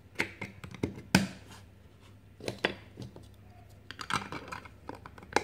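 Chunky plastic building blocks from a Peppa Pig train station construction set being handled and pressed together: a series of sharp clicks and knocks of hard plastic, the loudest about a second in.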